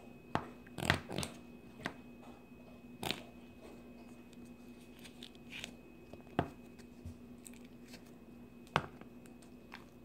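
A few scattered short clicks and knocks, about seven in all, over a faint steady hum.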